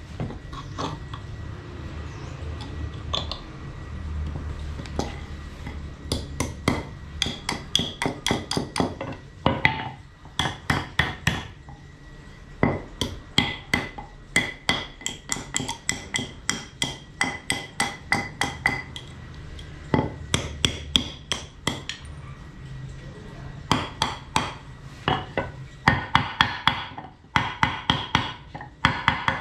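Hand-tool strikes: quick runs of sharp, ringing blows, about four a second, with short pauses between the runs.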